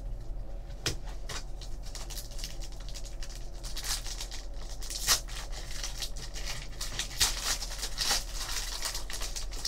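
Foil trading-card pack torn open and crinkled by hand: a run of crackling rustles with a few louder sharp tears.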